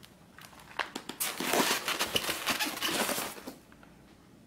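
Plastic wrapping and polystyrene foam packing crinkling and rustling as a packed monitor is handled, for about two seconds, after a few light knocks.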